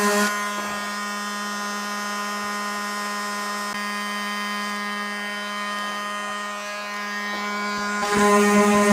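Cordless oscillating multi-tool with a sanding pad, running steadily with a high buzzing hum while sanding. It is quieter through the middle and gets louder again near the end.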